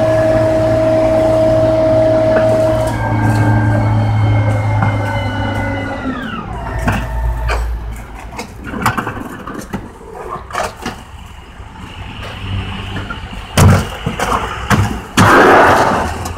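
1980s rear-loading garbage truck with its packer running, a steady whine from the engine and hydraulics that drops in pitch about six seconds in as the engine falls back toward idle. After that comes irregular clatter and sharp bangs of trash and cans, with a loud rushing burst near the end.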